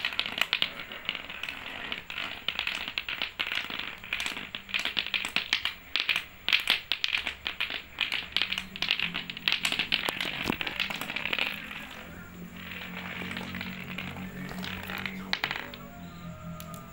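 Lato-lato clacker toy, two hard plastic balls on a string, knocking together and against a concrete floor in quick, irregular clacks, thinning out about twelve seconds in.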